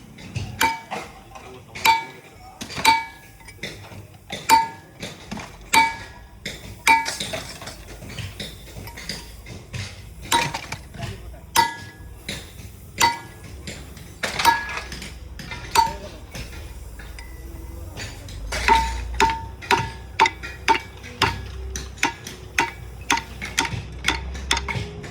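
Hammer blows on the metal of a heavy electric motor being taken apart: sharp ringing clanks, roughly one a second, coming faster, about two a second, near the end.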